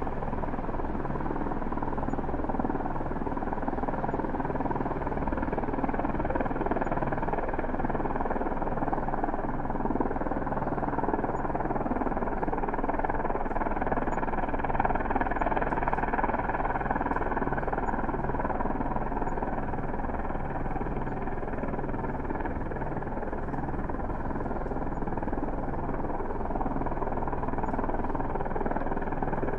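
Distant helicopter hovering: a steady wash of rotor and engine noise over a low pulsing hum.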